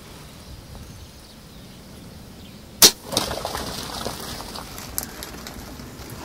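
A compound bow (Hickory Creek DL-24) is shot: one sharp, loud snap of the string release about three seconds in, followed by a few seconds of scattered rustling and clatter as the arrow hits and the warthog bolts.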